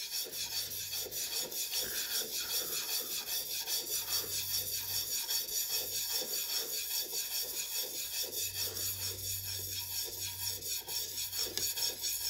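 Steel chisel bevel rubbed back and forth on a diamond sharpening stone: an even, rhythmic scraping of quick strokes, several a second, honing the edge with a light touch.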